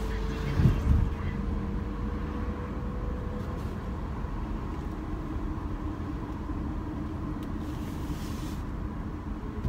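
Car interior noise while driving: a steady low road-and-engine rumble, with two short low thumps about half a second and a second in.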